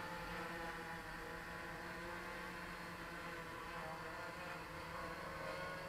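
Hoverthings Flip 385mm quadcopter on 3S with 10x4.5 props: its motors and propellers give a faint, steady buzzing hum as it hovers in altitude hold.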